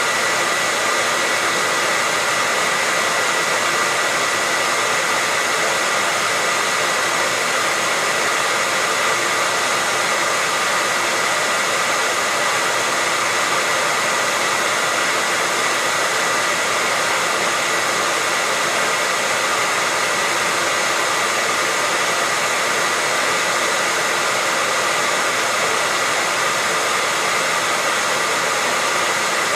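Hair dryer running steadily on one setting, a constant airy hiss with a high whine in it.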